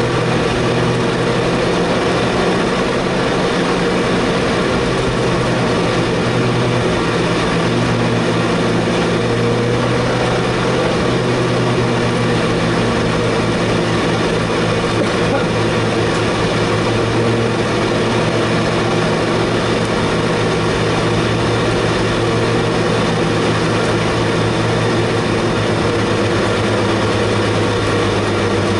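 Honda Prelude race car's engine heard from inside the cabin, running steadily at an even, moderate pitch with a constant hiss of road and wind noise: the car is cruising at reduced pace behind the safety car.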